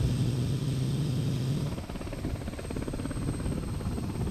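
Helicopter running: a steady mechanical noise with a fast, even flutter, and a low hum that drops out a little under halfway through.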